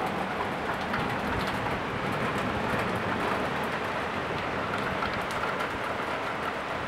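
Torrential rain, a steady, even hiss of a heavy downpour falling on the city.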